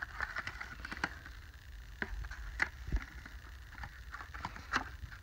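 Plastic blister pack and cardboard backing card of a Hot Wheels car package being handled and pried open by hand: irregular light clicks and crackles, with a few sharper snaps.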